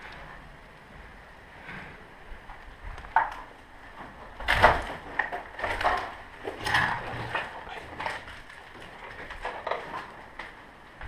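Footsteps crunching and scuffing over rubble and broken debris, with a cluster of louder crunches and knocks about halfway through.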